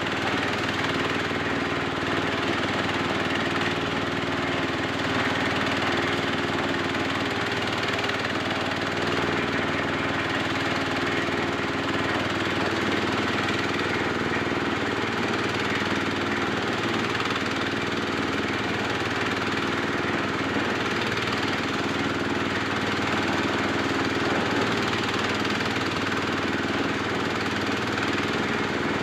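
SM10 corn sheller machine running steadily, its engine going at an even, unchanging pace.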